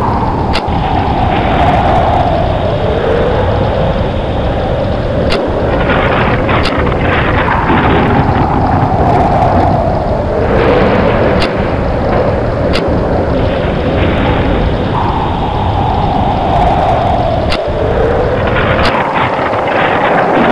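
Storm sound effect: steady wind and rain, with a gust whose whine falls in pitch, recurring about every five seconds, and brief sharp cracks here and there.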